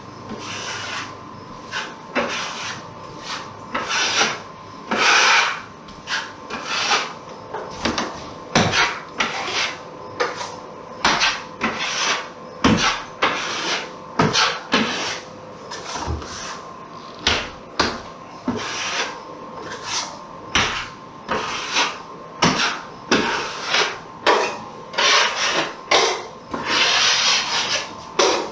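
Steel drywall knife scraping mud off the edge of a metal mud pan and spreading quick-set hot mud into the seams of a drywall patch: a run of short, irregular rasping scrapes, about one a second, over a faint steady hum.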